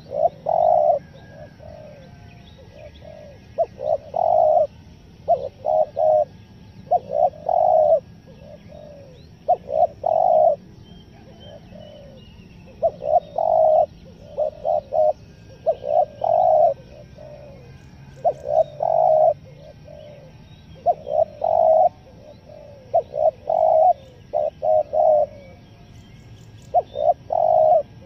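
Spotted dove cooing in repeated phrases of short, clipped, stuttering coos, one phrase every two to three seconds. This is the halting coo style used as a lure call for wild spotted doves. Faint chirps of small birds sound in the background.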